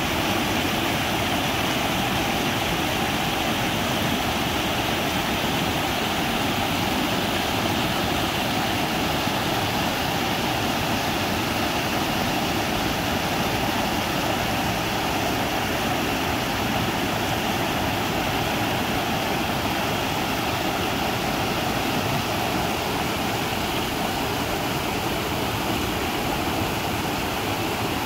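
Shallow rocky stream rushing over low rock ledges and small cascades: a steady, unbroken rush of water.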